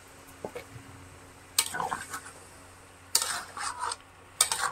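A spoon clattering and scraping against a kadai as the mutton curry is stirred, in three short bouts.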